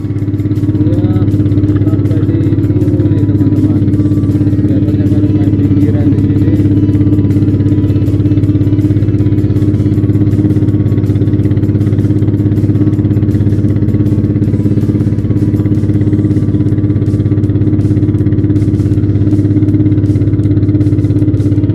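Small motorboat's engine running steadily under way, a loud, even low drone.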